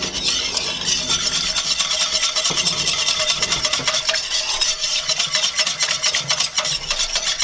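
A wire whisk beating a creamy sauce in a stainless steel skillet: a fast, even run of metal strokes scraping and tapping against the pan as sour cream is whisked in.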